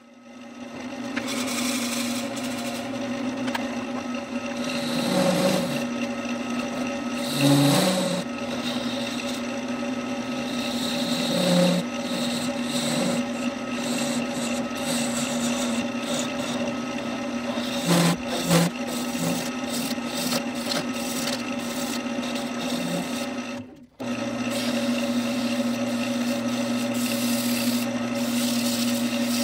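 Wood lathe motor running with a steady hum while the redbud bud vase spins, a hand turning tool scraping and cutting at the vase's opening, then sandpaper rubbing against the spinning wood.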